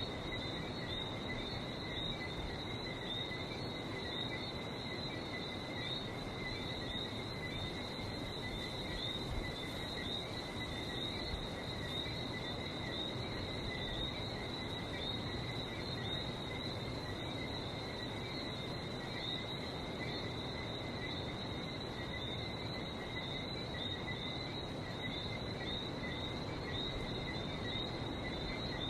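Night chorus of many Lesser Antillean whistling frogs, countless short high whistled chirps overlapping without pause, over a steady low wash of sea.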